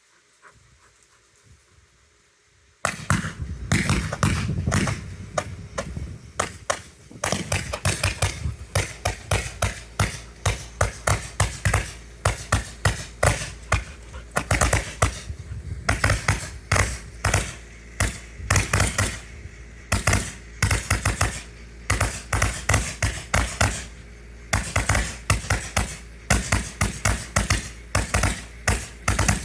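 Large roman candle (super candle) firing a rapid string of sharp pops, several a second, that starts about three seconds in after a quiet lead-in and keeps going.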